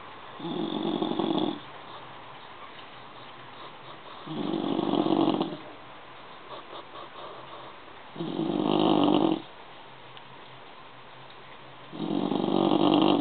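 Bulldog snoring in its sleep: four loud, rasping snores, each about a second long, at an even rhythm of one every four seconds or so.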